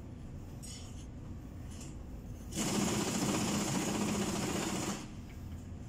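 A power tool runs in one burst of about two seconds of fast, buzzing machine noise. It starts sharply about two and a half seconds in and stops abruptly just before the end.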